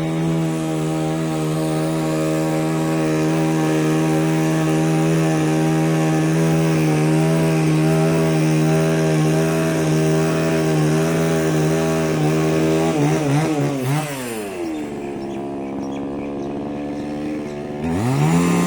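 Power saw motor running at a steady high pitch, slowing and dropping away about thirteen seconds in, then spinning back up near the end.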